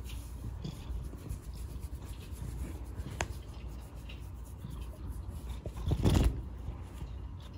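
Fingers scratching and rubbing a tabby kitten's fur close to the microphone: soft, irregular rubbing and rustling over a low rumble. About six seconds in comes a brief, louder brushing sound as the cat's head sweeps past.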